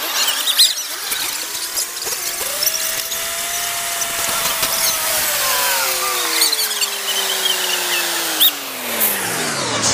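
Heavy diesel machinery working under load, the wheel loader straining against the laden truck, with a whine that rises over the first few seconds and then falls slowly and steadily to a low pitch, and scattered high squeals.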